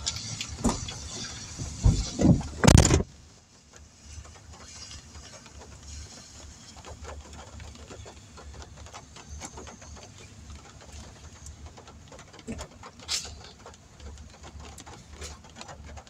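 Metal tools clattering for about three seconds, ending in a loud thump. After that, rain pattering on the truck's roof over a low, steady engine hum in the cab.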